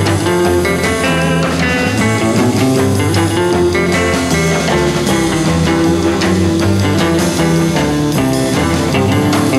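Background music led by guitar, with a bass line and steady held notes.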